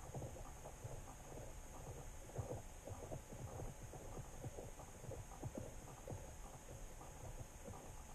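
Muffled underwater sound picked up through an under-ice camera: a low irregular rumble with many soft knocks, over a faint steady high whine.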